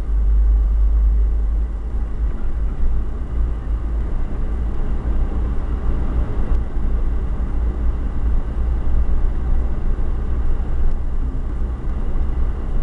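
A moving car heard from inside the cabin: a steady low rumble of engine and road noise.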